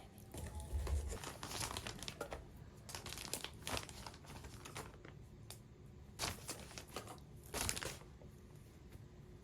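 Crinkling and tearing of a Pop Mart Labubu blind box's packaging as it is opened by hand, in a run of irregular rustles with bursts of louder crinkling.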